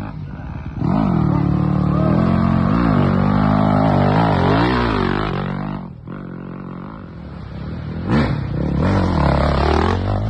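Dirt bike engines revving hard, their pitch rising and falling as the throttle is worked. The sound breaks off suddenly about six seconds in, then another dirt bike engine builds up and passes close near the end.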